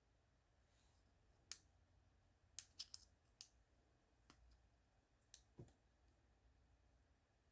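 Small sharp clicks and taps from handling the plastic remote key fob while its battery is being changed, about eight of them scattered over a few seconds.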